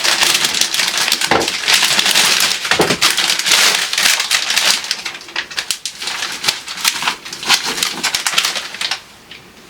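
Crinkly material being crumpled and handled: a dense, loud crackling that fades out about nine seconds in.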